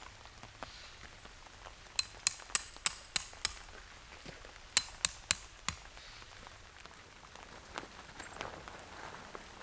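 Metal hammer striking metal with a bright ring: six quick blows about two seconds in, then four more about a second later, as when tent pegs are driven into the ground. Soft rain-like hiss underneath.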